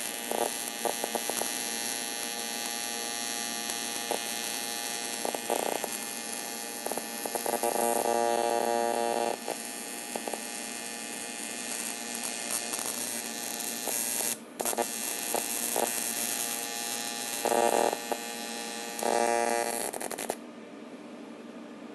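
AC TIG welding arc buzzing steadily on old cast aluminum, with several louder, rougher stretches, a brief break about two-thirds of the way through, and a sudden stop near the end, leaving a steady hiss. The roughness fits the arc being interrupted by heavy oxides in the casting, which the welder says keep the AC cycle from running smoothly.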